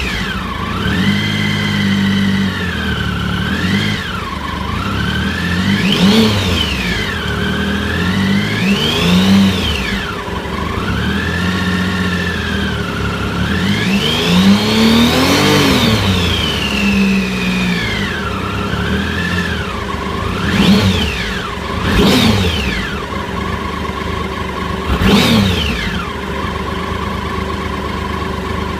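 Triumph Sprint ST 1050's three-cylinder engine revved up from low revs and let fall back about eight times, some rises wavering on the way up. The owner reports a hiccup at low revs whose cause is unknown.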